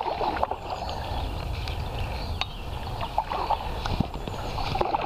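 Double-bladed paddles stroking and splashing through the water alongside an inflatable canoe, with a few small clicks and knocks.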